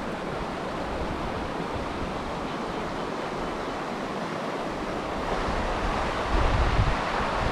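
Steady rush of a stream running high with spring runoff. Wind buffets the microphone with a low rumble in the last couple of seconds.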